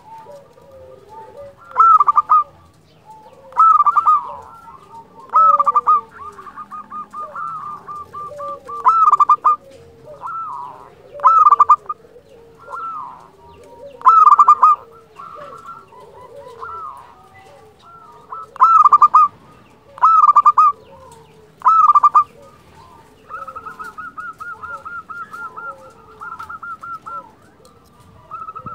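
Zebra dove (perkutut) singing: loud, flute-like coo phrases, about nine of them every two seconds or so, broken by two longer runs of fast, evenly repeated notes.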